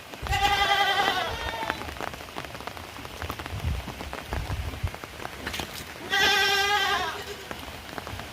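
A goat or sheep-like farm animal bleats twice, each call about a second long with a wavering pitch, once right at the start and again about six seconds in. Under the calls, heavy rain falls steadily with a patter of drops.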